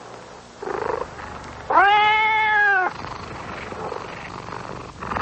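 A young cat meowing: one long, drawn-out call starting a little under two seconds in, with fainter, shorter calls before and after it.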